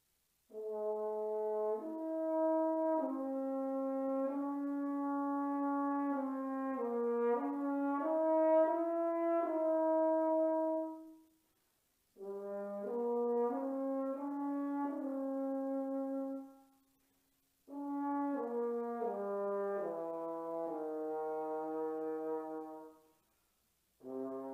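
A French horn played alone. A long phrase of held and moving notes is followed, after short pauses, by two shorter phrases, the last of them stepping down to lower notes. A new phrase begins just at the end.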